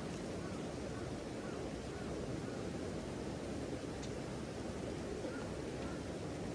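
Steady outdoor rushing noise of wind and water at a trout pond, with faint high chirps now and then.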